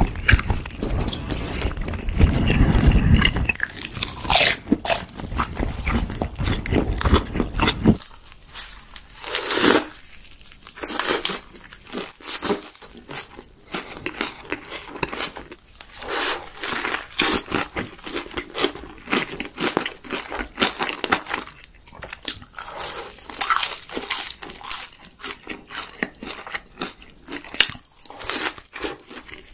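Close-miked eating: chewing fried chicken nuggets, then, after a sudden change about eight seconds in, repeated bites and chewing of a burger with many crisp crunches.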